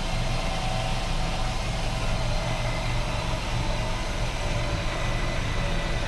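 RV rear slide-out motor running steadily as the bedroom slide-out extends: an even low hum with a faint higher whine.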